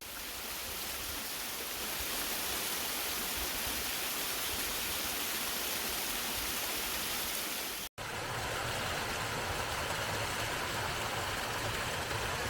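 Lye Brook Falls, a waterfall, rushing steadily. The sound drops out for an instant about eight seconds in, then carries on with more low rumble.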